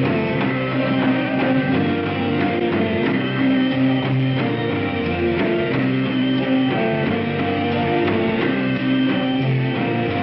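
Rock music with guitars strumming held chords and no singing.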